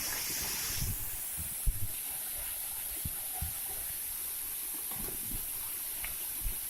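Steady hiss of falling water, with a few brief low thumps.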